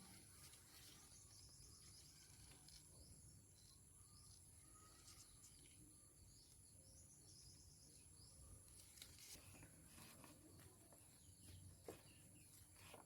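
Near silence: faint outdoor ambience with a steady high-pitched insect drone and a few small scattered clicks.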